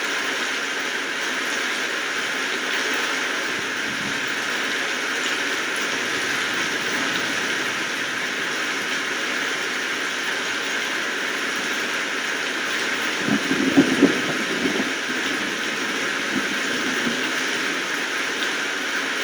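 Steady rain falling, an even wash of drops. A brief cluster of louder, lower knocks comes about two-thirds of the way through.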